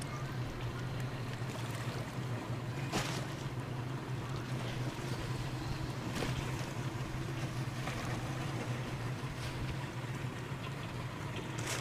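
Boat engine running with a steady low drone, over the wash of water and wind. A few brief sharp sounds come through, about three seconds in, around six seconds and near the end.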